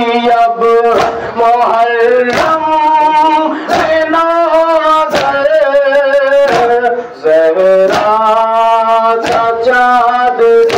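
Male voices chanting a Shia noha (mourning lament) over a microphone. The mourners' open-hand chest slaps (matam) land as sharp claps roughly once a second.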